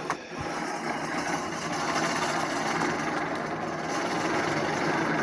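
Hand-cranked blower of an old forge being turned, a steady geared whirring that builds over the first second or two and then holds.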